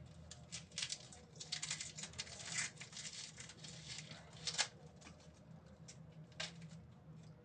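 Knife cutting an onion: irregular crisp clicks and scratchy crackles of the blade through the layers, densest about two seconds in, then a few single clicks.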